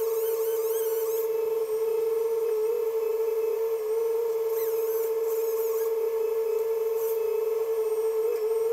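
A steady high-pitched whine holding one pitch throughout, with faint warbling high squeaks coming and going three times.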